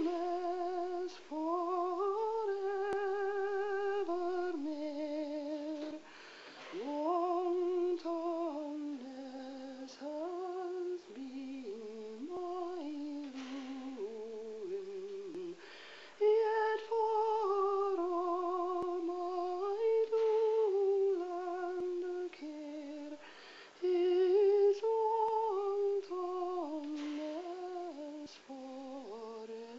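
A woman's voice singing a slow, unaccompanied melody, moving in steps between held notes with a gentle vibrato and short pauses for breath.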